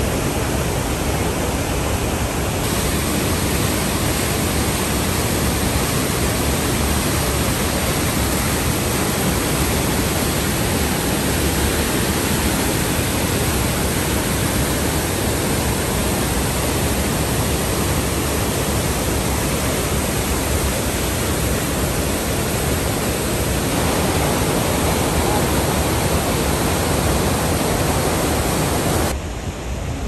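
Steady, loud rush of the Rhine Falls: a huge volume of water pouring over the rocks and churning in the basin below.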